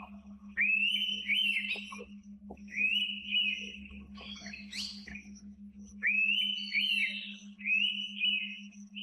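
Indian pitta calling: loud, clear whistled phrases about a second long, repeated four times. A different bird's brief, higher sweeping notes come midway. A steady low hum runs underneath.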